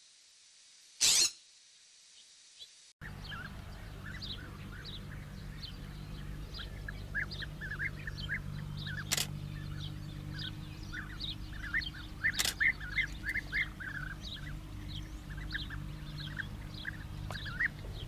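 A single loud, harsh call from a scrub-jay about a second in. After an abrupt cut, many small birds chirp quickly and repeatedly over a low steady hum, with two sharp clicks.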